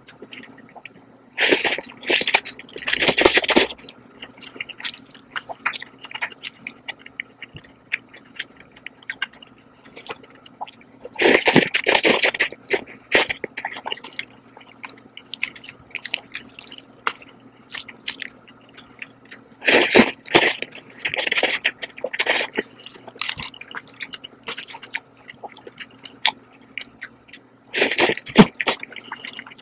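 Jjajang noodles slurped loudly in four bouts about eight seconds apart, with wet chewing and small mouth clicks between them. A faint steady low hum runs underneath.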